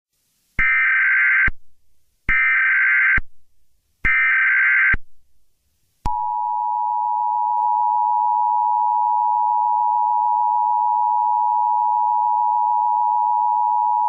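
Emergency Alert System tones: three short bursts of SAME header data tones, each just under a second. About six seconds in, the steady two-tone attention signal begins and holds for about eight seconds.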